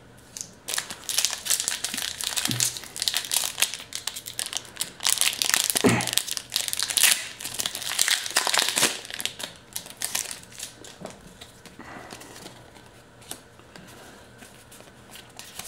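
Foil wrapper of a Pokémon booster pack crinkling and tearing as it is ripped open by hand, for about nine seconds; after that, fainter rustling as the cards are handled.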